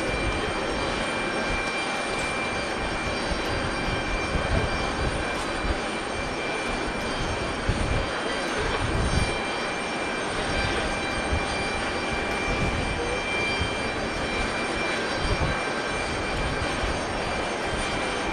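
Boeing 737-500's CFM56 jet engines running with a steady whine, several high tones held over a dense rushing noise.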